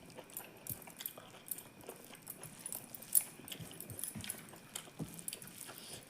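A person chewing food close to the microphone: wet mouth clicks and lip smacks, irregular, several a second, with one sharper smack about three seconds in.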